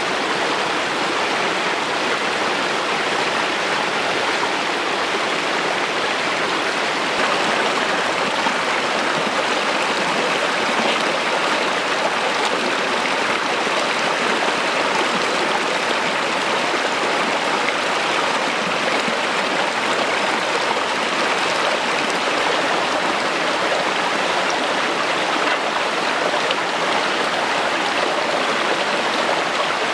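Shallow rocky stream running and splashing over stones in small cascades, a steady rush of water with no change in level.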